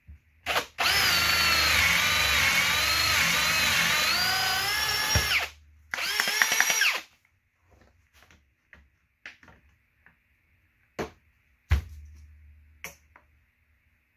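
Cordless drill boring a concealed-hinge cup hole into hard red oak through a Kreg hinge jig. After a brief blip the drill runs for about four and a half seconds, its motor pitch sagging and recovering as the bit bites, then gives one more short run. A few sharp knocks follow as the jig is moved.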